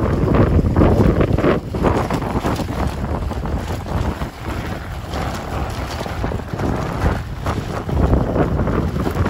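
Wind buffeting the microphone on the back seat of a moving motorbike, mixed with the bike's engine and its tyres rumbling over cobblestones as it rolls downhill.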